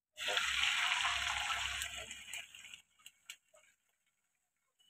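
Beaten eggs hitting hot cooking oil in a frying pan, sizzling loudly. The sizzle starts suddenly and dies away within about three seconds, leaving only a few faint clicks.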